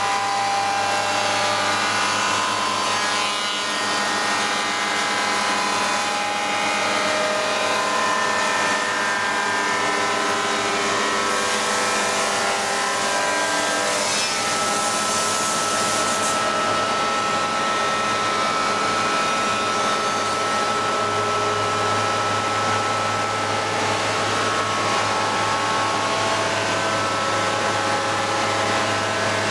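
SAOMAD Sintesi window-corner woodworking machining centre running steadily, its motors giving a loud hum with several shifting whining tones. About eleven seconds in, a burst of hiss rises for roughly five seconds.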